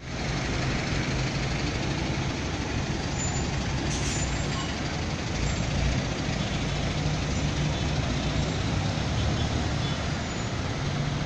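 Traffic driving slowly through a flooded street: a steady wash of tyres through water and running engines. From about halfway through, a dump truck's diesel engine hums close by as it passes.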